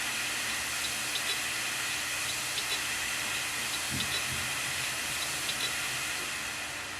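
Failing 3 TB Seagate hard drive running with a steady hiss and faint, irregular light ticks, plus one dull knock about four seconds in; the drive is no longer detected by the computer. The sound fades near the end.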